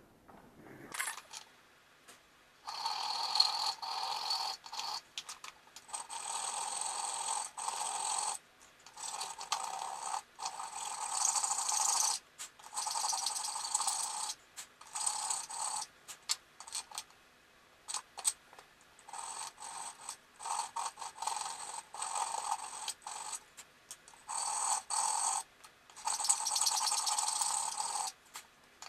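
A metal file scraping through the slot of a brass knife-guard piece in repeated runs, each a second or two long with short breaks between, widening the slot so it fits over the tang.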